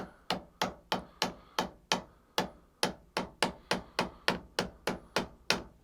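A milling machine vise being tapped lightly and rapidly, about twenty sharp strikes at three or four a second, to nudge it round into alignment. The taps stop just before the end.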